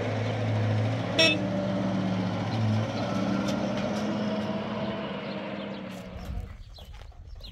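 Old pickup truck's engine running as it pulls away, with a short horn toot about a second in. The engine sound fades as the truck drives off near the end.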